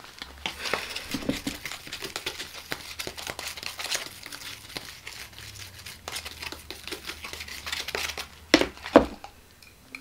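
Crinkling and rustling as hands in rubber gloves handle things, with many small clicks and two sharper knocks near the end.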